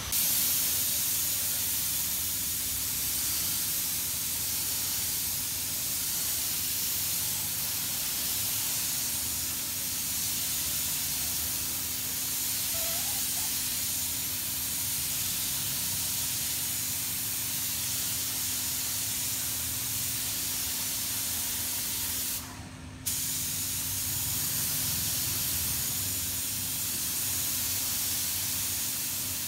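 Compressed-air spray gun hissing steadily as it sprays a coating onto a plastic car headlight lens, with one short break about three-quarters of the way through.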